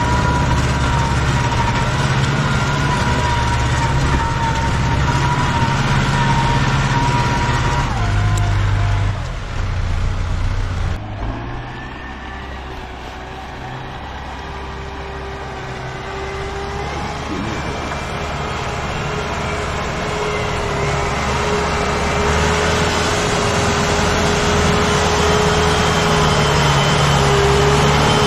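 New Holland tractor's diesel engine running in deep mud, with a steady whine over the engine note. About eleven seconds in it cuts to a quieter tractor engine that grows steadily louder as a Deutz-Fahr forestry tractor comes up the muddy track.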